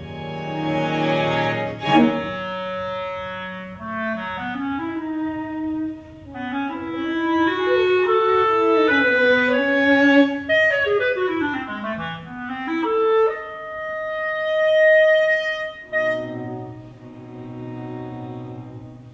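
Clarinet playing a winding melodic line with string quartet accompaniment, rising to a long held note about three-quarters of the way through; the strings then hold low sustained chords near the end.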